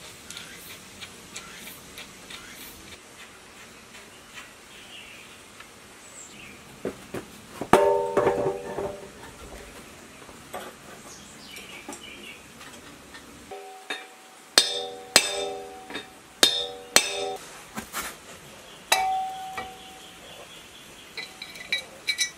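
Sharp metallic clanks, each leaving a short ringing tone: cast-iron flywheel and pulley parts being knocked and fitted on a ZS1115 single-cylinder diesel engine. One strike comes about 8 seconds in, a quick run of four or five in the middle, and a last ring a little later, with light handling clicks between.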